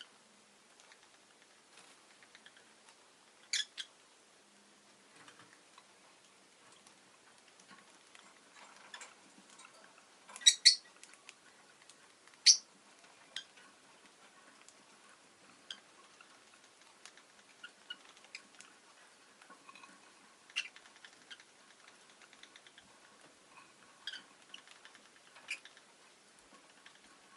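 Rosy-faced lovebird giving short, sharp, high-pitched chirps, one at a time with long gaps and a quick pair about ten seconds in. Faint clicks and scratches sound between the calls.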